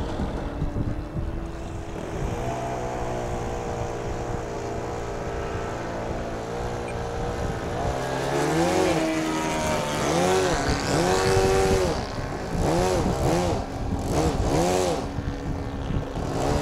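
ASP 61 four-stroke glow engine of an RC Spacewalker II model plane in flight, a steady drone. From about halfway through it swells up and down in pitch several times in quick succession.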